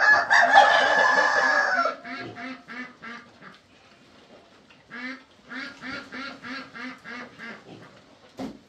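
Pigs vocalising in a straw pen: a loud squeal for about two seconds at the start, then runs of short low grunts, about four a second.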